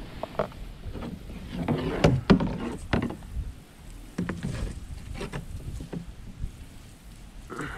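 Knocks, bumps and scraping on a plastic fishing kayak's hull and fittings as a pole and gear are handled aboard, with a cluster of sharp knocks about two to three seconds in.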